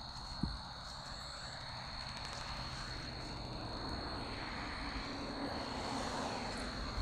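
Distant engine noise of a passing vehicle slowly swelling over several seconds, over a steady high-pitched insect drone. A single small knock about half a second in.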